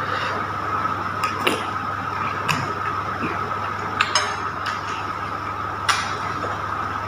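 Metal spoon clinking and scraping against a glass bowl while eating: about six sharp clinks, two close together about four seconds in, over a steady background hum.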